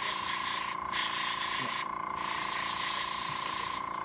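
Airbrush hissing as it sprays weathering paint onto an N-scale freight car model in short trigger pulls. The spray stops briefly about a second in, again around two seconds in, and near the end. A steady whine runs underneath throughout.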